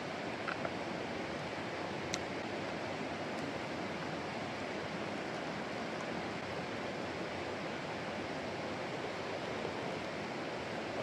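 A mountain stream rushing steadily, with a faint click or two in the first few seconds.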